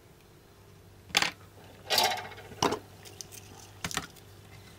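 Four short, sharp clicks and knocks over a few seconds: metal tweezers and a small model-train motor being handled and set down on a bench cutting mat.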